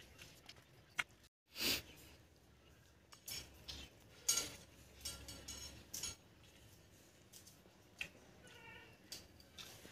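Eating by hand from a steel plate: fingers scraping and scooping rice against the metal, with mouth and chewing sounds, in short separate bursts.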